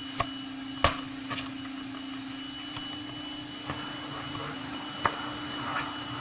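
A few light clicks and knocks from handling the plastic outlet and side panel as the outlet is tried in the freshly drilled hole, over a steady background hum.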